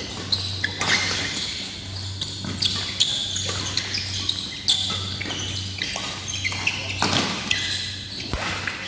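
Badminton doubles rally: sharp racket strikes on the shuttlecock about once a second, mixed with the squeak and scuff of court shoes, echoing in a large hall over a steady low hum.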